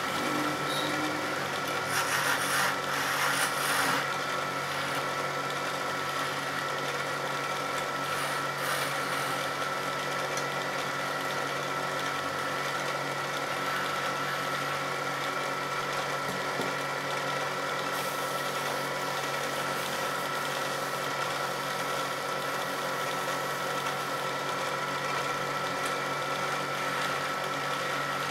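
Small motor-driven wood lathe running with a steady hum while a hand chisel cuts a spinning wooden spindle; the scraping of the cut is loudest about two to four seconds in and again around eight seconds in.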